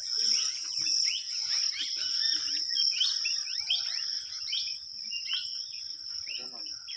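Insects shrilling steadily on one high pitch, over brushing and rustling of leafy weeds and grass underfoot as a person wades through them; the rustling thins out near the end.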